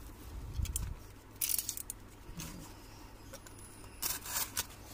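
Utility knife slicing through packing tape and corrugated cardboard, in short scraping bursts, with the package being handled.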